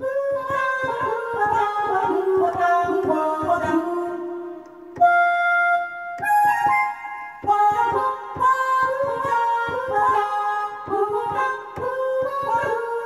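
Korg Pa1000 arranger keyboard played by hand, sounding a preset voice from its Strings & Vocal bank: a quick melodic line of single notes, with one note held for about a second and a half near the middle before the run picks up again.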